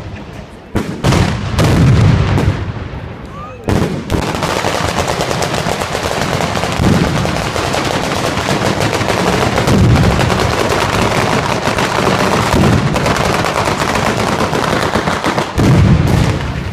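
Fireworks going off: a few separate loud bangs, then from about four seconds in a long, dense rattle of rapid bangs like machine-gun fire. Heavier booms come near the end.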